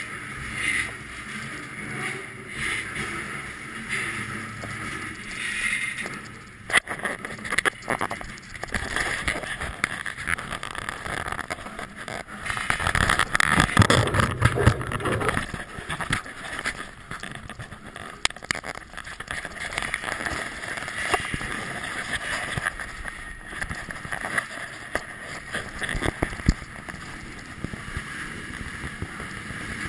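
Freight train rolling, heard from the end platform of a moving freight car: a steady rumble and clatter of steel wheels on the rails with rattling and knocking of the cars' ironwork. It swells to its loudest about halfway through, then settles back.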